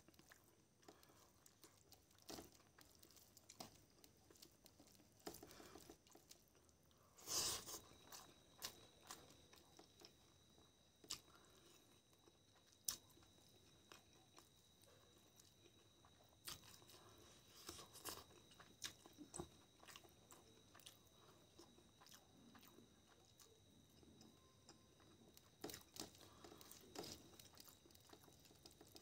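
Close-up eating sounds: fingers squishing and mixing rice into curry gravy on a steel plate, and mouth chewing, as small wet clicks and smacks at irregular intervals with a louder burst about seven seconds in.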